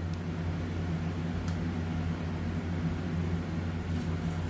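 Steady low mechanical hum of shop machinery, with a few faint light clicks as a plastic stencil sheet is handled and laid down.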